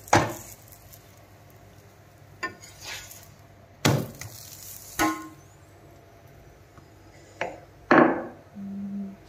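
Steel spoon knocking against an iron tawa as a paratha is pressed and turned: about six sharp separate clinks and knocks spread over several seconds.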